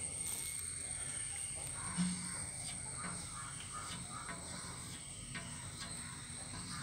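Faint scratching and tapping of chalk on a blackboard as small circles are drawn, over a steady high-pitched whine.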